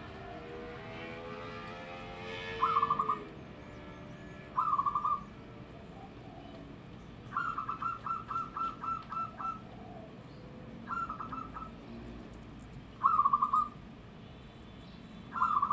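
Zebra dove (perkutut) cooing: six short, rapidly stuttering phrases near 1 kHz a couple of seconds apart, the third a longer string of about nine notes. The calls are loud, standing well above the background.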